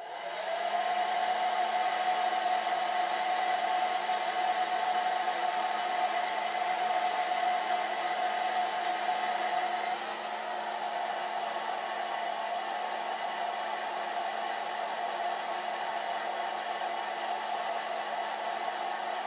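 Handheld hair dryer switched on and running steadily, a rush of blown air with a steady whine; about halfway through it becomes slightly quieter.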